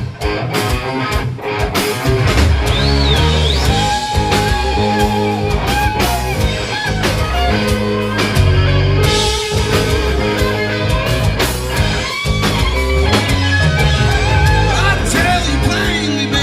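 Rock band playing: a guitar lead with held, bending notes over bass and drums with a steady beat.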